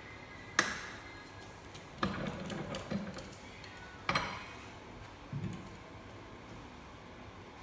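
Metal clanks and knocks from a Cobb absorbency tester being handled: a sharp clank about half a second in, a short rattle around two seconds in, another sharp knock about four seconds in and a softer thump, as the steel test cylinder is swung over and the cardboard sample is unclamped and removed.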